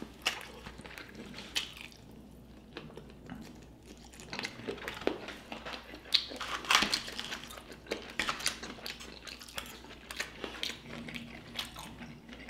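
Chewing and biting of food, with many short clicks and crunches scattered irregularly throughout.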